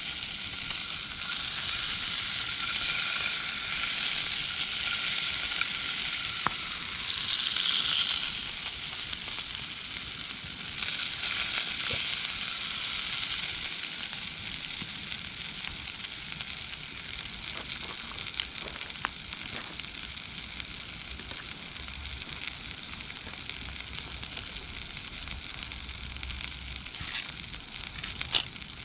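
Formed meat sizzling as it grills over a campfire, a steady hiss with a few sharp crackles. It swells louder about seven seconds in and again around eleven seconds, then settles lower.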